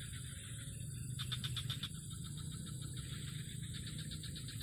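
Insects trilling in short bursts of fast pulses, about a second in and again near the end, over a low steady hum of outdoor background.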